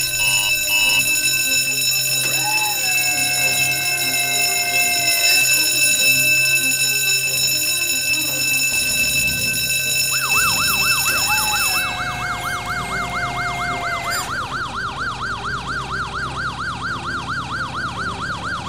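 A fire station alarm bell rings steadily, and twice a siren tone rises and then holds for about three seconds. About ten seconds in, a fire engine's electronic yelp siren starts, wailing quickly up and down. The bell stops a couple of seconds after the siren starts.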